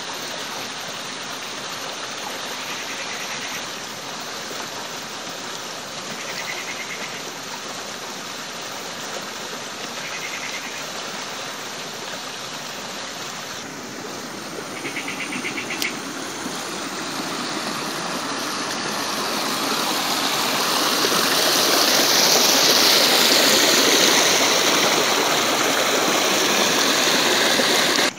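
Shallow stream running over stones, a steady rushing hiss of water that grows louder over the second half. A few short insect trills chirp in the first half.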